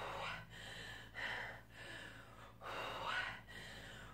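A woman breathing hard and audibly through lateral raises, one loud breath in or out after another, each a bit under a second long.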